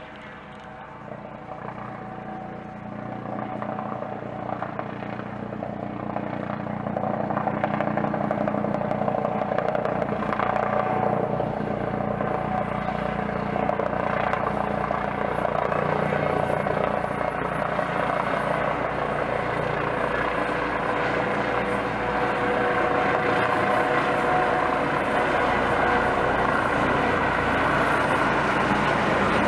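Eurocopter EC155 B1 helicopter, with twin turboshaft engines and a shrouded fenestron tail rotor, approaching and passing low. Its rotor and turbine noise grows louder over the first several seconds, then holds steady.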